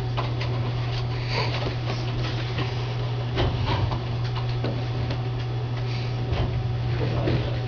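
Reflow oven running with its heating elements switched on, giving a steady low electrical hum, with faint scattered ticks over it.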